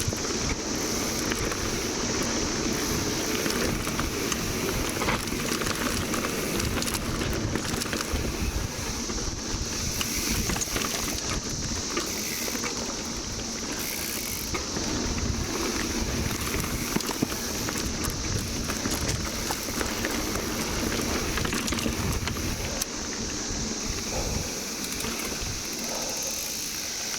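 Mountain bike riding along a dirt trail: a running rumble from the tyres with many scattered clicks and knocks. Behind it is the steady high drone of a periodical (17-year) cicada chorus.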